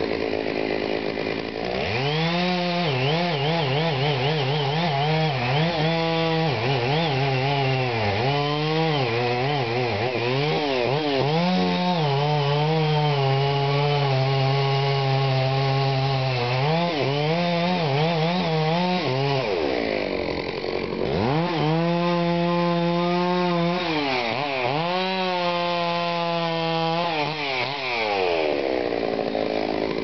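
Stihl 066 Magnum two-stroke chainsaw revving up about two seconds in and cutting into a pine trunk at full throttle. Its pitch sags and recovers again and again under load. About twenty seconds in the throttle drops off briefly, then the saw revs back up and keeps cutting.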